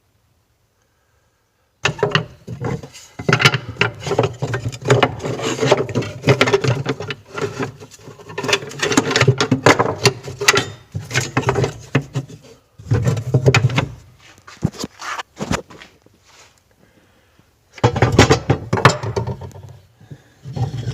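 Old metal carpentry tools clattering and knocking as they are handled and moved about in a wooden tool chest. It starts about two seconds in, in dense bursts, with a short lull near the end.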